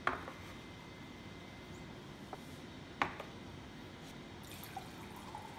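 A ceramic bowl set down on a wooden tray with a sharp knock, then a second sharp knock about three seconds later as a ceramic mug is set down beside it.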